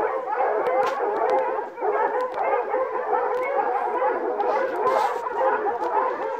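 A pack of hunting hounds baying together without pause at a wild boar held at bay: many overlapping voices in one dense, loud chorus.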